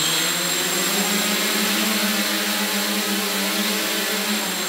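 AeroQuad quadcopter's four electric motors and propellers running hard, straining under the load of a person it is trying to lift: a loud, steady whine over rotor hiss. The pitch steps up about a second in and drops back a little near the end.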